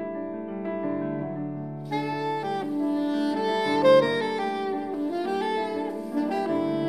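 Grand piano playing alone, then a soprano saxophone comes in about two seconds in and plays a flowing melody over the piano accompaniment.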